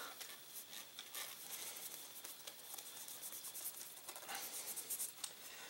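Cloth cleaning patch rubbing over the oiled blued steel of a Rossi Circuit Judge revolving carbine, a faint scratchy rubbing with small squeaks, a little louder near the end. The squeak is the sign of metal wiped squeaky clean.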